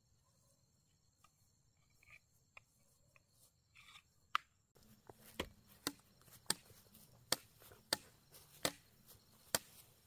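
Repeated sharp chopping strikes, a blade hitting wood, about one every 0.7 seconds from about five seconds in, after a few faint clicks.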